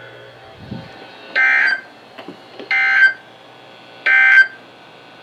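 Emergency Alert System end-of-message data tones: three short, buzzy bursts of digital signalling about 1.4 seconds apart, marking the end of the alert broadcast.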